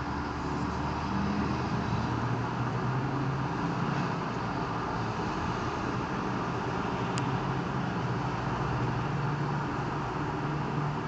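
Road traffic through a busy city intersection: a steady mix of car and bus engines and tyre noise, with no single vehicle standing out.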